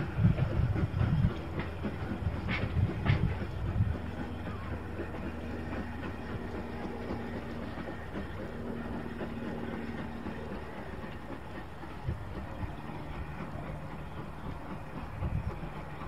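Ivatt 2MT 2-6-0 steam locomotive working out of sight, heard as a low rumble that is loud for the first few seconds and fades to a quieter steady hum.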